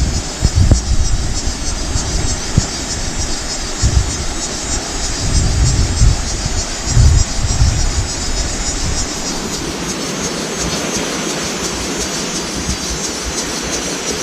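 Sea surf washing steadily, with wind buffeting the microphone in gusts through the first two-thirds, easing after that.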